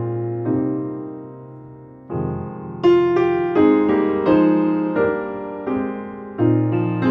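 Slow background piano music: notes and chords struck and left to fade. It drops to a soft lull, then picks up again with louder chords about two seconds in.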